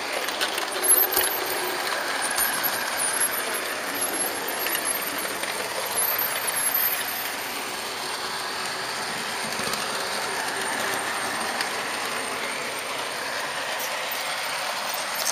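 HO-scale Märklin model train running on its track, heard from the camera car riding on it: a steady rolling rattle of small metal wheels on the rails, with a few sharper clicks about a second in.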